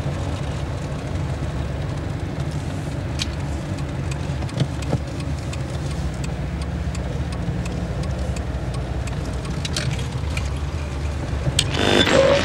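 Car driving, heard from inside the cabin: a steady low engine and road rumble with a few faint clicks.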